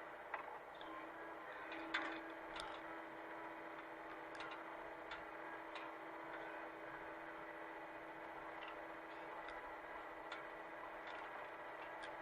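Hitachi mini excavator running at a steady pitch, with irregular sharp clicks and knocks every second or two, the loudest about two seconds in.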